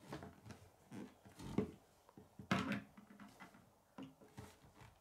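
Plastic K'nex pieces of a model sword knocking and rattling against a wooden tabletop as the sword is handled and set down, a string of short knocks with the loudest about a second and a half and two and a half seconds in.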